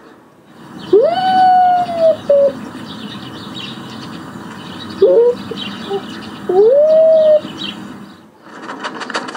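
Raccoon dog calling: a long whine about a second in that rises and then holds a steady pitch, short yelps after it and again around five seconds in, then another long rising whine near seven seconds, over a steady hiss.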